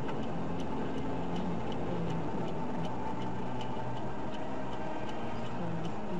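Steady road and engine noise inside a moving car, with a light ticking that repeats evenly about two or three times a second.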